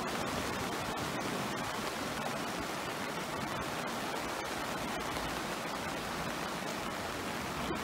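Steady rush of the Kyll river in flood, fast high floodwater pouring past.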